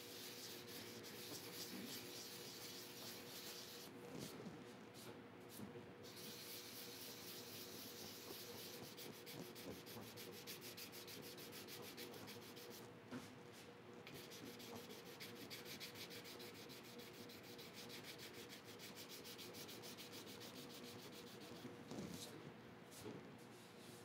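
Dry sanding with 400-grit sandpaper on a painted steel motorcycle fender: a faint, quick, steady scratching that pauses briefly twice. The paint edges around a chip are being feathered smooth down to bare metal.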